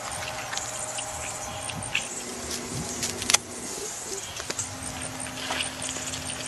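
Butter sizzling and crackling in a small pot over a wood fire, with many small scattered pops. About three seconds in comes one sharp knife chop as a head of garlic is cut through on a wooden log.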